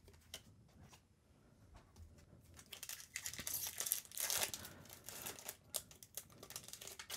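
A foil Magic: The Gathering booster pack wrapper being torn open and crinkled by hand. It starts with a few faint ticks as cards are set down, and the crackling and tearing begin about two and a half seconds in.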